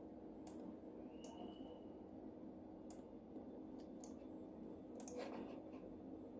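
Faint, scattered clicks of a computer mouse, about six over the few seconds, over a low steady hum.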